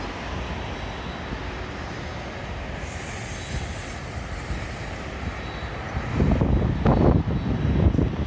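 Airliner on approach, a steady engine rumble that grows louder about six seconds in, with gusts of wind buffeting the phone's microphone.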